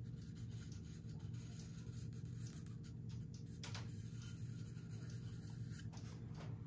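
Felt-tip marker drawn along a steel knife blade to redraw the line on the edge bevel, a few faint scratchy strokes over a steady low hum.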